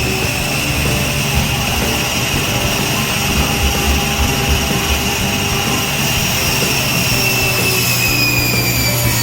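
Electric power tool motor running at full speed with a loud, steady high whine, its pitch sagging slightly near the end.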